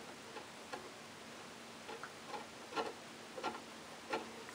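Faint, irregular light clicks of a felt-tip marker's tip tapping against the end of a small screw as the screw is marked for cutting to length.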